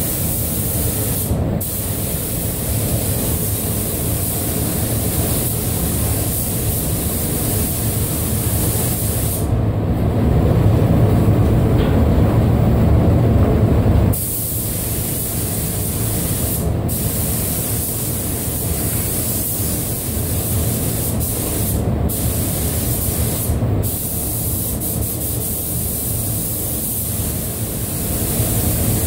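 Compressed-air paint spray gun hissing as it coats Land Rover Defender door panels, the high hiss dropping out briefly several times, over a steady low rumble of the spray booth's air handling.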